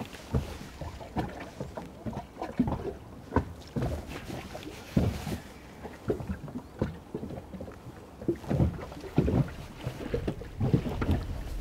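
Small waves slapping irregularly against the side of a drifting boat, over a low wind rumble on the microphone.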